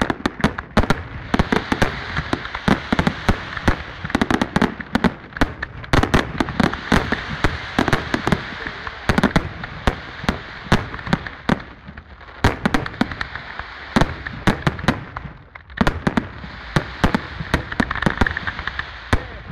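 Aerial fireworks display: a rapid, nearly continuous barrage of shell bursts and bangs over steady crackling. There is a short lull about three-quarters of the way through, then the barrage picks up again.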